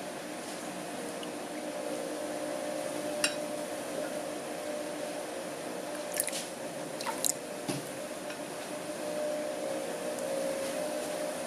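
Spatula stirring thickening slime in a glass bowl, wet squishing, with a few sharp clicks as the spatula knocks the glass, about a third of the way in and twice more past the middle. A steady low hum runs underneath.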